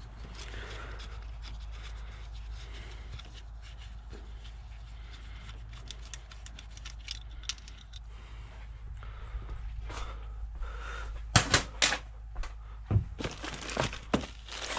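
Metal hand tools clinking and ticking against engine parts as a wrench is worked on a 17 mm fastener, with a few louder metallic knocks near the end.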